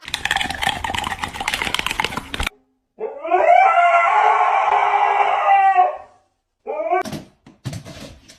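A rapid rattling clatter for a couple of seconds, then a dog howls in one long call, followed by a few short, falling yelps near the end.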